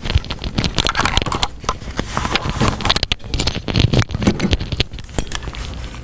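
Clip-on microphone being handled, rubbing and knocking against clothing in dense, irregular crackles and rustles that ease off near the end.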